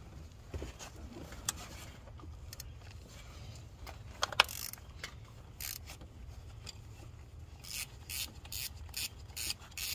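Hand ratchet clicking as it loosens the two 10 mm bolts that hold an ignition coil. A few scattered clicks and a sharper one midway lead into a steady run of clicks, about three a second, near the end.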